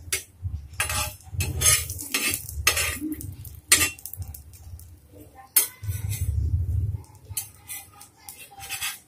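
Steel spatula scraping and knocking against a tawa in a string of sharp strokes as a grilled sandwich is pressed and turned over.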